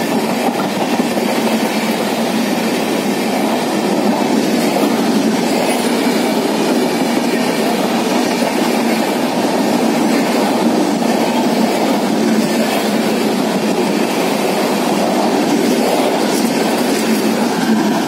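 Indian Railways passenger coaches rolling past along the platform: a steady rumble of wheels on the track, even throughout, with no horn.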